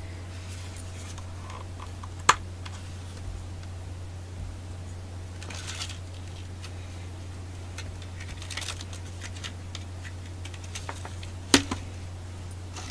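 A boxed pH meter being opened and handled: a sharp click or tap about two seconds in and another near the end, with light rustling and sliding of packaging in between, over a steady low hum.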